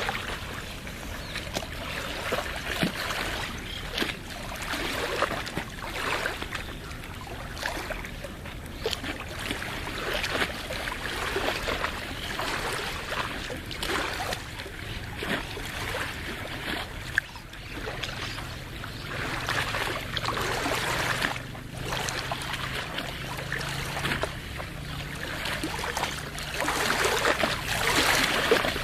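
Small waves on a lagoon lapping and splashing in uneven surges. A faint low hum comes in a little past the middle.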